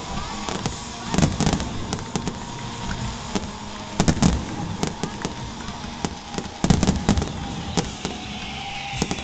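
Aerial fireworks bursting in a grand-finale barrage: a steady run of sharp bangs and booms, with the heaviest clusters about a second in, about four seconds in and near seven seconds.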